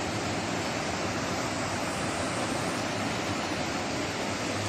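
Fast mountain river rushing over boulders: a steady, even rush of water with no break.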